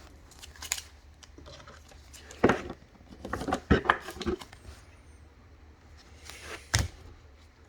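Trading cards being handled on a table: a few sharp clicks and taps as cards are slid and set down, with a short cluster of them in the middle.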